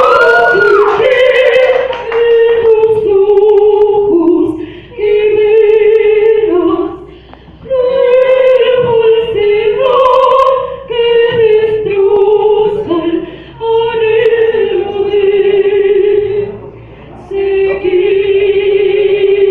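A woman singing long, held notes with vibrato in an operatic style, in phrases a few seconds long separated by short breaths, with little audible instrumental backing.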